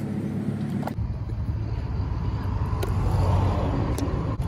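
Land Rover Freelander TD4's four-cylinder turbodiesel engine idling steadily, heard close in the open engine bay. About a second in the sound changes abruptly to a rougher, noisier rumble.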